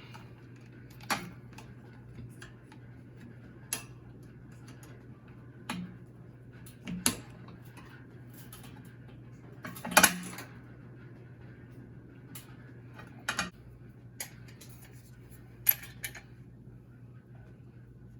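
Metal washer parts and tools being handled, giving a series of separate sharp clinks and knocks, the loudest about ten seconds in, over a steady low hum.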